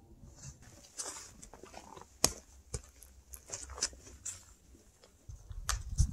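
Faint footsteps crunching and clicking unevenly on a trail, a step about every half second through the middle, with a low rumble coming in near the end.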